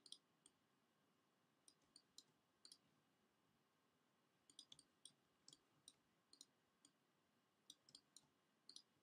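Faint, irregular clicks of a computer mouse and keyboard keys, singly and in quick clusters of two or three, over a quiet room.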